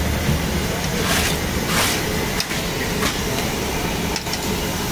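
Steady low rumble and hiss of a street-food frying station, its gas burners and hot oil in woks, with two short rushing noises about one and two seconds in and a few light clicks of metal vessels.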